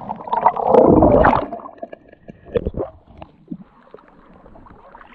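Underwater bubbling from a scuba diver's exhaled air, a loud rush for about the first second and a half. It then drops to sparse small pops and gurgles of water.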